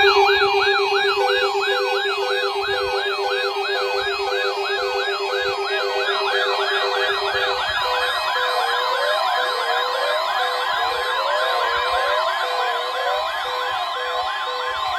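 Several weather alert radios sounding their electronic siren alarms at once: overlapping fast wails at different pitches, about two a second. Under them a steady low tone stops about halfway through, and a steady higher tone starts.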